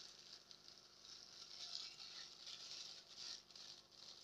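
Near silence: a faint, uneven rustle over a faint steady hum.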